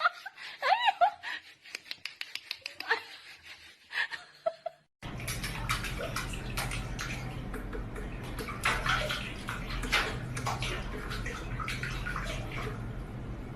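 Running water with splashing and a low hum, as of a tub or basin being filled or used, starting suddenly about five seconds in. Before it come scattered clicks and a few short high-pitched sounds that glide in pitch.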